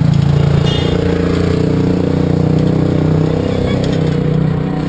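Street traffic with a nearby motor vehicle engine running steadily, heard from an open cycle rickshaw.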